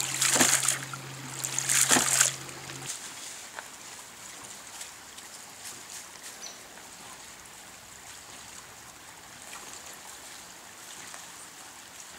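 A ram pump's weighted waste valve spurts and splashes water in two surges about two seconds apart, each surge one stroke of its water-hammer cycle as the pump builds pressure. About three seconds in, this gives way to a faint steady trickle of creek water.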